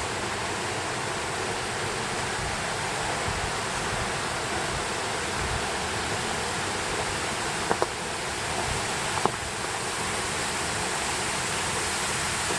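Steady rushing of a mountain stream, with a few brief clicks about eight and nine seconds in.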